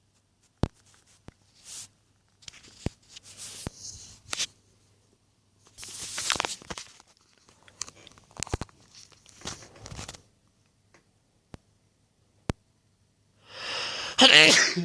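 A man's breathy, hitching inhalations building up to an induced sneeze, with scattered sharp clicks and rustles between them. Near the end the buildup ends in a loud voiced burst, the sneeze, which falls in pitch.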